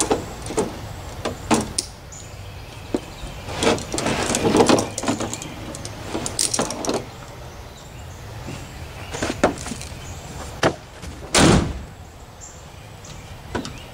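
Rope strap and carabiner clips being worked around a cooler in a pickup bed, a run of clinks and rustles. About eleven seconds in, the Toyota Tundra's tailgate is shut with a loud bang, after a couple of lighter knocks.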